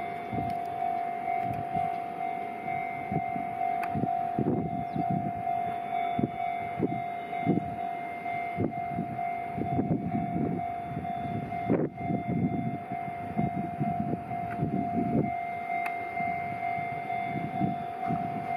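A steady high warning tone sounds without a break over an uneven low rumble as a DD51 diesel-hydraulic locomotive hauling a freight train approaches.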